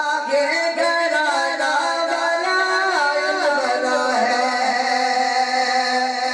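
A man singing a naat into a microphone, amplified through a sound system. He holds long ornamented notes that slide between pitches, settling on a long held lower note in the second half.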